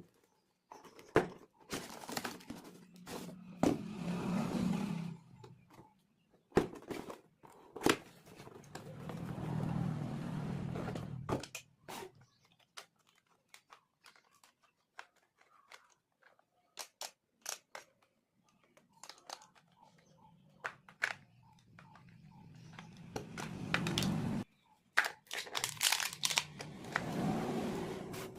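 Packaging of a toy robot being handled and torn open: plastic and cardboard crinkling and tearing, with many sharp clicks and taps between stretches of rustling.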